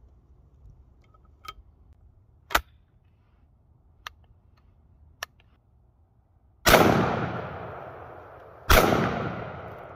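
16 gauge double-barrel hammer shotgun (H. Burgsmüller & Söhne) fired twice, two shots about two seconds apart, each echoing and dying away slowly. Before the shots come a few sharp metallic clicks as the gun is closed and the hammers are handled, one click much louder than the rest.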